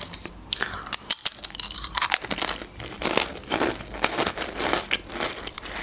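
Potato chips crunched and chewed close to the microphone, a run of crisp crackling bites.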